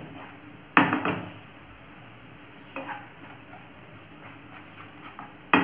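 Spatula stirring onion-tomato masala frying in a nonstick pan, the masala sizzling. Two sharp knocks of a utensil on the pan, about a second in and near the end, with a few lighter scrapes and taps between.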